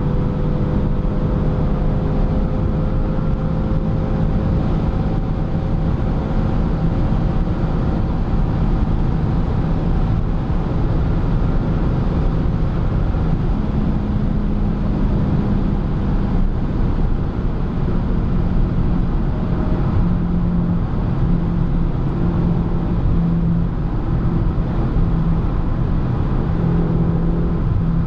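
BMW M6's twin-turbo V8 running steadily at autobahn speed, heard from inside the cabin along with constant road noise.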